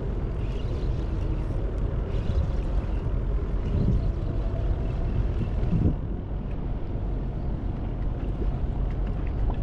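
Wind rumbling on the microphone over open water, with a faint steady hum from a boat engine.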